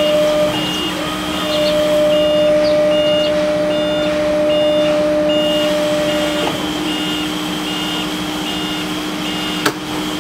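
Stand-on electric reach truck's warning beeper sounding a steady run of short high beeps, about three every two seconds, over a low electric hum. The truck's electric motor runs with a steady whine from about a second in until about six and a half seconds. A sharp click comes near the end.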